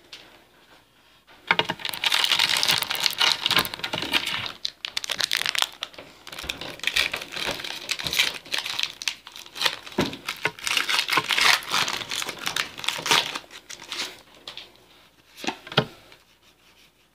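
Foil wrapper of a Pokémon trading card booster pack being torn open and crinkled by hand: a dense crackling that starts about a second and a half in and lasts until near the end, followed by a few brief rustles.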